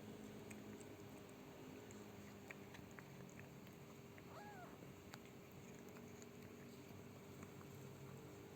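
Near silence broken by one faint, short mew from a newborn kitten about halfway through, rising then falling in pitch, with a few faint clicks.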